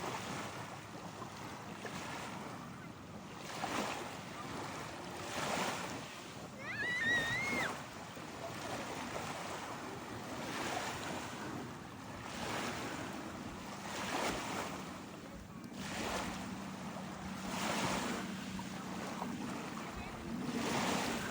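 Small ocean waves breaking and washing in the shallows, swelling and falling every second or two, with wind on the microphone. A brief high squeal cuts in about seven seconds in, and a low steady hum comes in near the end.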